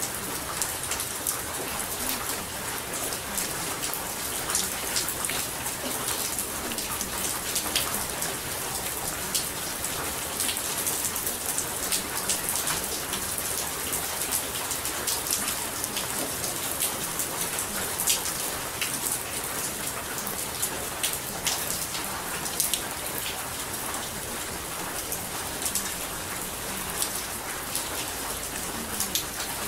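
Steady rain falling, an even hiss dotted with many sharp drop ticks.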